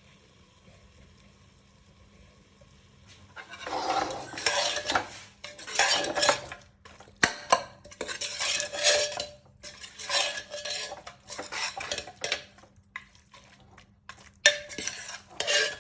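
Metal spoon stirring and scraping in a cooking pot in repeated strokes, with small clinks against the rim, starting about three and a half seconds in. The turnip and chicken curry in the pot is nearly done.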